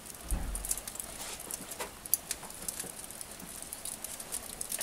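Light, irregular crackling and ticking from a wood-fired oven's glowing embers and the hot oiled socca pan heating in it, with a low thump about half a second in.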